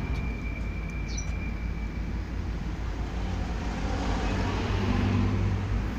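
Road traffic noise: the steady rumble of passing motor vehicles, with an engine hum growing a little louder in the second half.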